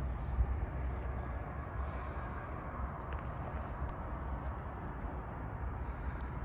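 Steady outdoor ambient noise with a low, fluctuating rumble of wind buffeting the microphone. Faint high chirps come about two seconds in and again near the end.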